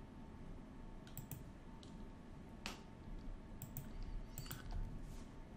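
Faint clicks of a computer mouse and keyboard while working in CAD software: about eight scattered clicks, several in quick pairs such as double-clicks.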